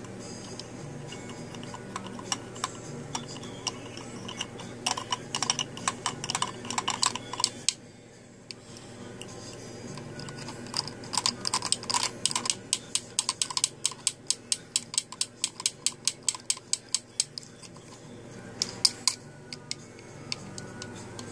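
A cockatoo's beak working at a plastic toy cement truck: sharp plastic clicks and taps. A cluster comes about a quarter of the way in, then after a short lull a long regular run of about three to four clicks a second.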